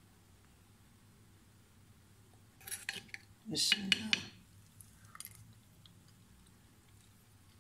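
A spoon clinking and scraping against a clay bowl of kheer as it is scooped, a cluster of quick clicks about two and a half seconds in and a few faint taps a couple of seconds later.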